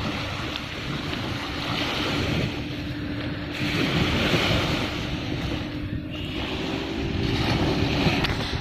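Sea surf washing onto the beach, swelling in three surges, with wind rumbling on the microphone.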